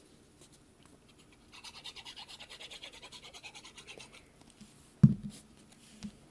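Adhesive being applied to a paper piece: a rapid, even, scratchy rubbing on paper for about three seconds, then a sharp thump as something is set down on the table.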